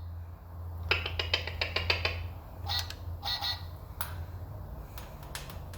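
Animal-sound toy playing a duck's "quack quack": two short quacks about half a second apart. Before them comes a quick run of sharp plastic clicks, with a few single clicks after, from the cockatoo working the toy with its beak.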